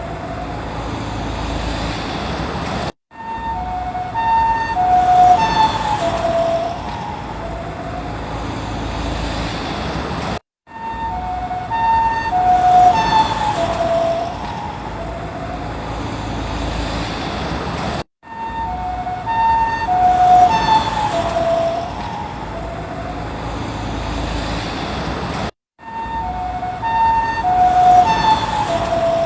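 Japanese ambulance two-tone hi-lo siren driving past: the alternating notes drop in pitch as it passes and the sound swells then fades, over engine and road noise. The same pass-by recording of about seven and a half seconds plays over and over, four times, with a brief silence between each.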